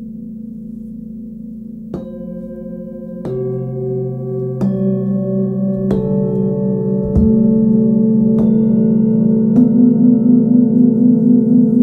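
Set of forged Tibetan singing bowls struck one after another with a felt-headed mallet: seven strikes about a second and a half apart, starting about two seconds in. Each bowl keeps ringing, so the tones pile up into a louder, wavering chord. One bowl is already ringing softly at the start.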